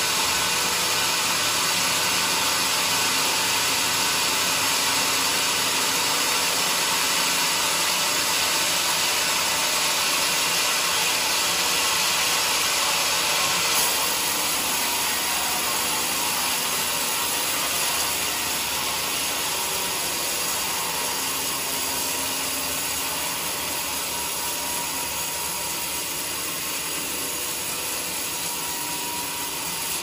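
Vertical band sawmill ripping a bayur log as the carriage feeds it through the blade: a steady sawing noise of the band cutting wood over the running machine, easing slightly in the second half.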